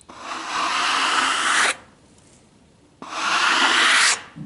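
Stiff-bristled hand brush sweeping sawdust off a freshly sawn walnut slab: two long scraping strokes, the first about a second and a half long, the second about a second, with a short pause between.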